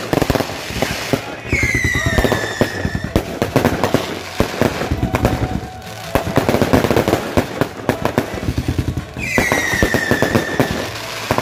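Consumer fireworks going off at close range in quick succession: a dense run of bangs and crackles. Twice, once about a second and a half in and again near the end, a whistling firework sounds, its whistle falling slightly in pitch.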